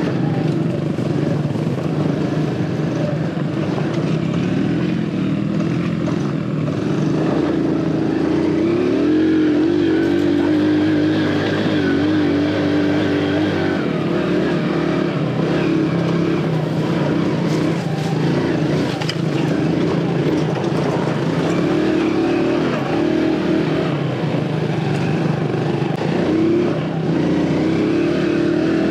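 Aveta Ranger Cub Cross 115's 115cc single-cylinder four-stroke engine running as the bike is ridden, its pitch rising and falling with the throttle: it climbs about eight seconds in, holds, and drops back a few seconds later.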